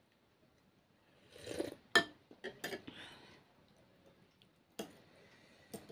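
Metal fork and spoon clinking and scraping against a ceramic noodle bowl while eating. The sharpest clink comes about two seconds in, a few lighter ones follow, and two more come near the end.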